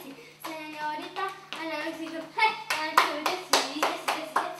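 Group of voices singing a melody with steady rhythmic hand clapping keeping time, the clapping sharper and louder in the second half; the voices pause briefly at the start and come back in about half a second in.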